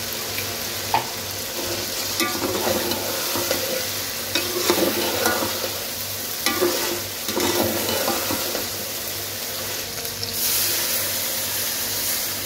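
Chicken and diced vegetables sizzling in ghee in a pan over high heat, with a spoon scraping and stirring them in irregular strokes.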